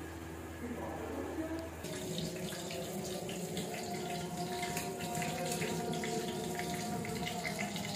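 Running water splashing steadily, starting abruptly about two seconds in. Before that there is a low steady hum.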